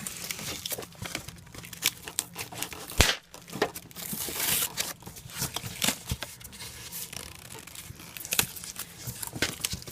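Packaging being torn open and crinkled by hand, with scattered clicks and knocks of handling; a sharp knock about three seconds in and a longer tearing rustle between about four and five seconds in.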